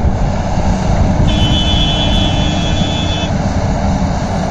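Large Volvo crawler excavator's diesel engine running under load as it loads soil into a dump truck, with a high steady whine for about two seconds in the middle.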